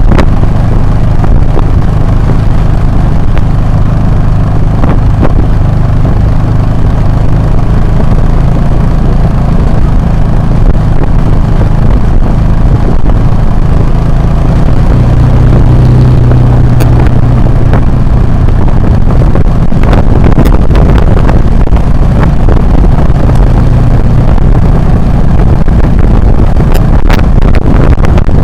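Motorcycle engine running steadily under way, loud, with wind noise on the action-camera microphone and a few sharp clicks.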